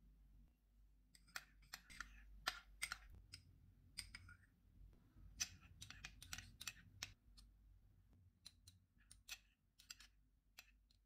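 A spoon clicking faintly and irregularly against a bowl, often several clicks in quick succession, as a mayonnaise-and-ketchup sauce is stirred.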